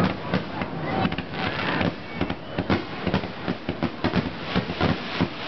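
Aerial fireworks finale: a rapid, irregular barrage of shell bursts and crackling reports, several bangs a second, growing denser after the first couple of seconds.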